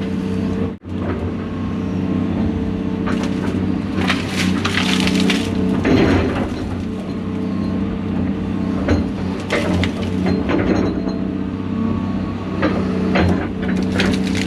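John Deere 250G LCR excavator's diesel engine running steadily under load while brush and branches crack and snap as they are torn out and crushed. The sound drops out briefly about a second in.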